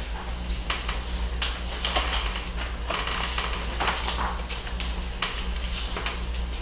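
Paper rustling and pages being turned, in many short, irregular scratches, over a steady low hum.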